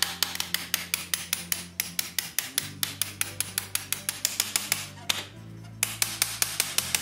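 Fast, repeated hammer blows on an old iron bolt, about five a second, driving it up out of a weathered wooden wagon frame. The hammering stops for a moment about five seconds in, then starts again.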